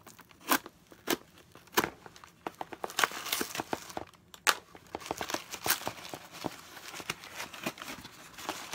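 Cardboard box being opened: a series of sharp snaps and tearing as tape and cardboard give way, with crinkling of packaging in between.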